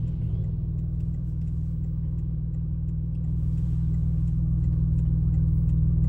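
Car engine idling with a steady low rumble, heard from inside the cabin, growing slightly louder in the second half.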